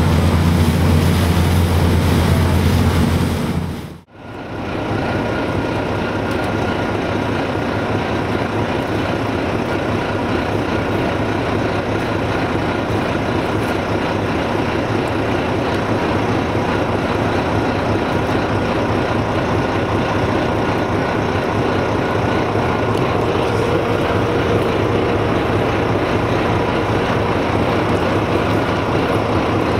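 Steady engine and travel noise of a moving vehicle, heard from on board. It breaks off about four seconds in and resumes as a more even rushing drone.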